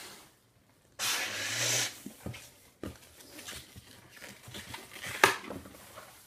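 A second-long rush of air as a 260 twisting balloon is inflated, about a second in. It is followed by rubbery squeaks and rubbing as the inflated balloon is handled and stretched, with one sharp squeak a little after five seconds.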